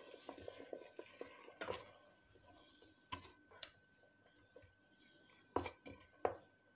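Wooden spatula stirring a stew in a stainless steel pot: soft scraping clicks at first, then a few sharper knocks of the wood against the pot, the loudest near the end.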